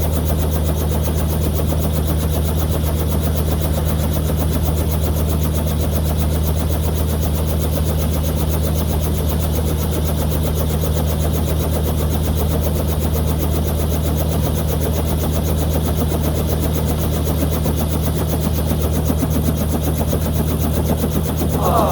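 Small helicopter's engine and rotor running in flight, heard from inside the cabin: a loud, steady low drone with a fast, even beat from the rotor. A brief higher sound comes near the end.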